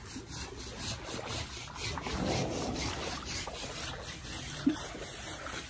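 Coconut husk scrubbed over a wet Asian elephant's hide: a rasping rub in repeated strokes, with one brief louder blip near the end.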